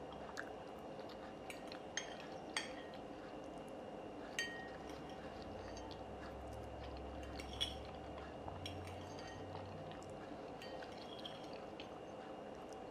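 Eating utensil clinking now and then against a dish while someone eats, about a dozen light, scattered taps. One tap about four seconds in rings briefly. A faint steady hum runs underneath.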